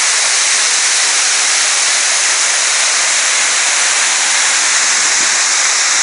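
Waterfall pouring over rock close by: a loud, steady rush of falling water.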